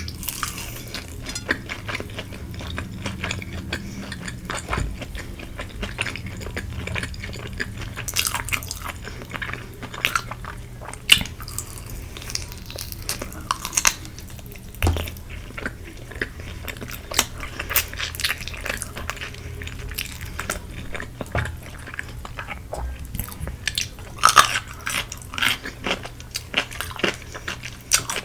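Close-miked biting and chewing of crispy Korean fried chicken: irregular crackly crunches and wet chewing, with a low steady hum underneath.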